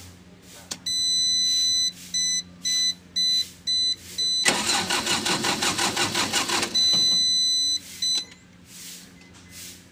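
Generator-set control panel buzzer beeping as the key is turned on: one beep of about a second, then a string of short beeps. Then the genset's starter motor cranks the engine for about two seconds with a fast pulsing grind, the buzzer sounds again, and the engine does not catch.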